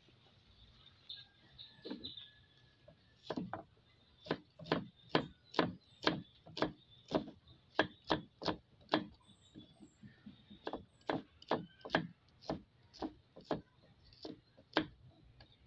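A kitchen knife chopping onion on a thick wooden chopping block: a steady run of knocks, about two a second. They start about three seconds in, with a short pause about ten seconds in.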